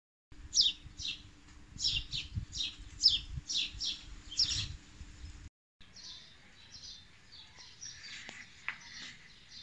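Birds chirping: a run of loud, repeated short downward chirps about two a second over a low hum, then after a brief break fainter, mixed chirping.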